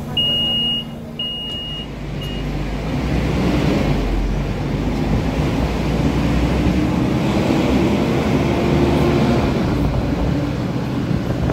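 Volvo B12BLEA articulated bus pulling away: a beeper sounds a few short beeps at first, then the diesel engine and loud radiator fan build up as the bus accelerates, with an engine note rising in pitch for a few seconds midway.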